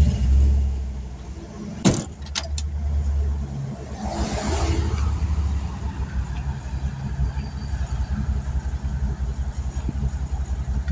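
An engine running steadily with a low throbbing rumble, with three sharp clicks about two seconds in and a short hiss around four seconds in.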